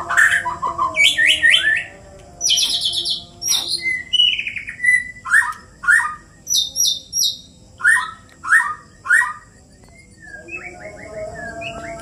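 Murai batu (white-rumped shamas) singing against each other in a song duel: quick bursts of short repeated chirping notes and whistles. The song breaks off for a moment about ten seconds in, and a long whistle begins near the end.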